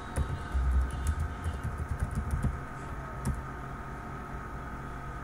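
Typing on a computer keyboard: a run of scattered key clicks over the first three seconds, then quieter. A low rumble sits under the first second and a half of typing.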